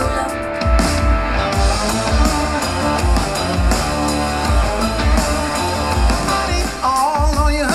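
Rock music with guitar and drums, played back through a JBL Cinema SB160 soundbar as a listening test. A strong bass beat comes about twice a second, and a higher melodic line comes in near the end.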